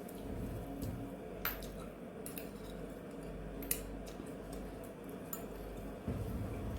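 Scattered light clicks and taps of kitchen utensils and dishes as kimbap fillings are laid onto rice-covered nori, over a steady low hum.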